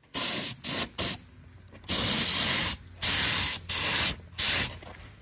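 Air-fed gravity-feed spray gun spraying clear coat onto a bumper panel, in about seven bursts of hiss as the trigger is pulled and let go, the longest just under a second.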